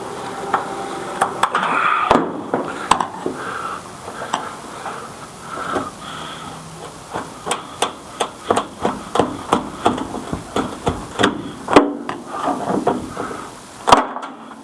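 Repeated sharp knocks and taps as a windshield is worked loose from an old rubber seal that has stuck hard to the glass. The knocks come irregularly at first, then run at about two or three a second through the second half, with the loudest strikes near the end.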